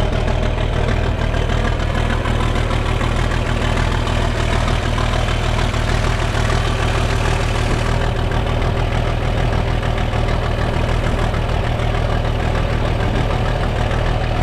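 John Deere 4520's six-cylinder diesel idling steadily just after a cold start, its fuel turned up; it sounds mean.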